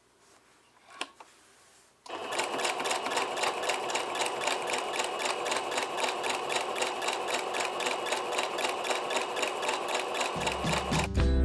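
Singer Patchwork sewing machine with a walking foot attached, stitching quilt layers at a steady pace. It starts suddenly about two seconds in and keeps an even, rapid stitch rhythm. Near the end, background guitar music comes in.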